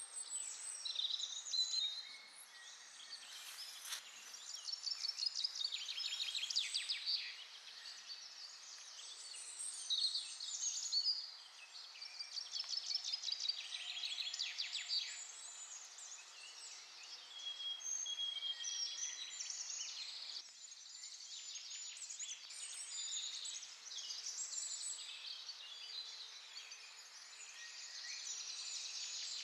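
Small wild birds singing and calling over one another, high chirps and rapid trills coming in bursts over a faint outdoor hiss.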